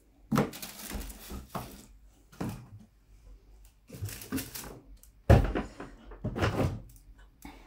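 Cardboard product boxes and packaging being picked up and moved: a series of scrapes, rustles and knocks, the sharpest and loudest a little over five seconds in.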